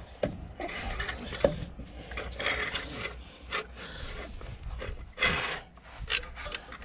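Finned cylinder barrel of a Vladimirets T-25's air-cooled diesel scraping and rubbing against the piston and head studs as it is worked down by hand, with a few metal knocks.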